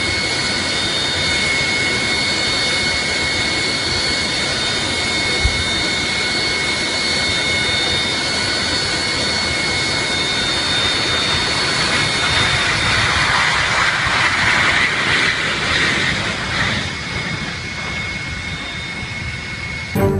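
A jet airliner's engines running with a steady high whine over a loud rush. The rush swells somewhat past the middle and eases again near the end.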